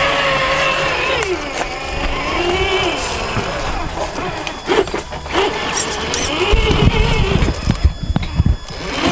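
Traxxas TRX-4 scale RC crawler's electric motor and gearbox whining, the pitch rising and falling with the throttle as it crawls slowly. A few knocks sound about halfway through, and low rumbling noise fills the last couple of seconds.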